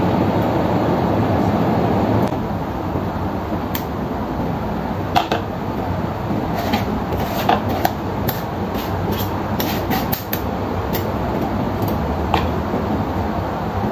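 Metal spoon pressing and scraping soy pulp in a fine-mesh strainer over a stainless steel pot, with scattered sharp clicks and taps of spoon on metal from about four seconds in, over a steady background hum.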